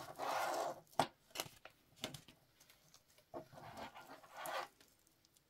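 Plastic packaging sleeve crinkling as it is handled, with a few light clicks and taps from a metal link watch strap being picked up and set down on a table. The crinkling comes at the start and again about three seconds in.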